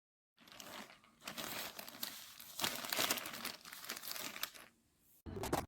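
Crinkling and rustling of something being handled and crumpled, with many small crackles, then a short, fuller rustle near the end.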